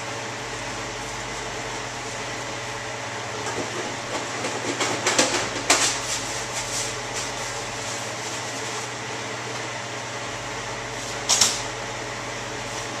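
Steady blower noise with a low hum, typical of the penetrant booth's air dryer running. Several clicks and knocks of handling come about four to six seconds in, and a short double knock near the end.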